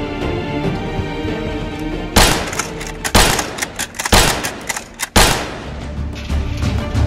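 Background music. About two seconds in, a quick run of loud gunshot-like bangs breaks in, roughly two a second for about three seconds, then stops.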